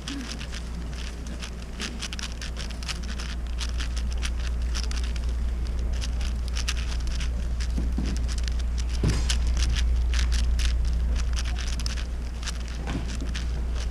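Moyu Weishi 6x6 speedcube being turned fast by hand in a speedsolve: a rapid, uneven clatter of plastic clicks from the layers turning. A steady low hum runs underneath.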